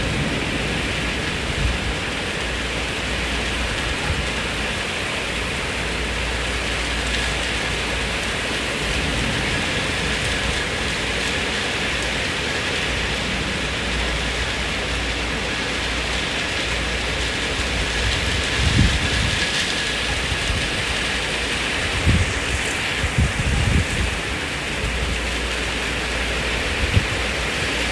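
Steady rain falling hard, with a few short low rumbles of thunder about two-thirds of the way in and again near the end.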